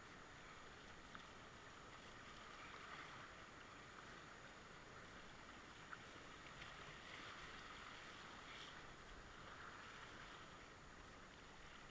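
Faint, muffled, steady rush of whitewater river rapids around a kayak, with a few small clicks.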